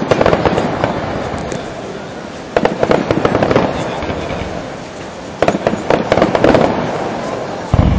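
Fireworks display: three clusters of rapid bursting and crackling reports, about two and a half seconds apart, each dying away into a rumble, then one deeper boom near the end.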